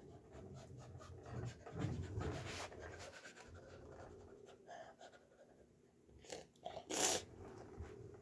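Scattered soft rustles, clicks and light knocks of someone moving around close to the camera, with a short, sharper rustle about seven seconds in, the loudest sound.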